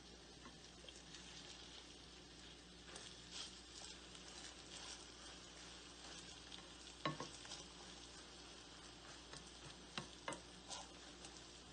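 Beaten egg sizzling faintly in an oiled frying pan while a spatula scrapes and breaks it up. The spatula knocks sharply against the pan about seven seconds in and twice more around ten seconds.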